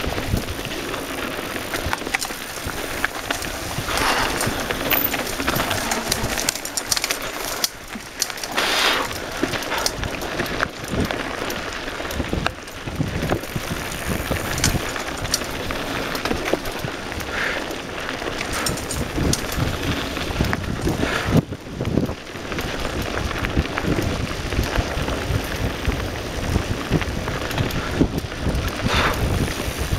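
Mountain bike rolling downhill on dry dirt and loose gravel singletrack: a steady rush of tyre and air noise with many small clicks and rattles, louder for a moment now and then.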